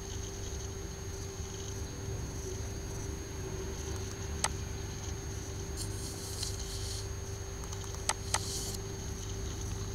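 Three sharp computer-mouse clicks: one about halfway through and two in quick succession near the end, with a brief soft rustle between them. Under them runs a steady electrical hum and hiss.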